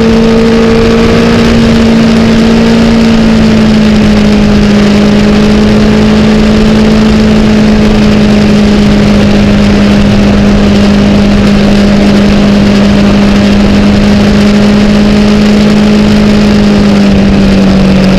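Engine of a 2008 Honda CBR1000RR inline-four sportbike running at a steady cruise with wind rush over the microphone, its note dropping slightly about three seconds in and again near the end.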